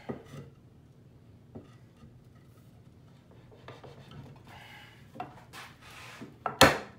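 Wooden frame parts being handled and rubbed together, with a few light knocks, then a couple of loud, sharp mallet blows near the end knocking the mortise-and-tenon joint home.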